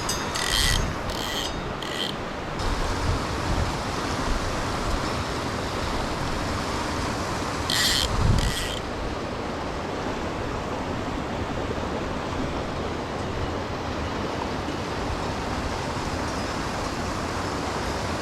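Mountain torrent rushing steadily over rocks. A few short, high clicks come in the first two seconds and again about eight seconds in.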